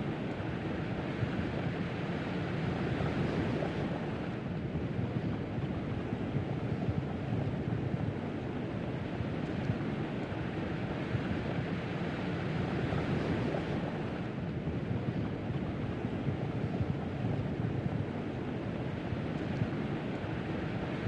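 Steady wind buffeting the microphone over the rush of the sea, recorded on the deck of a moving ship.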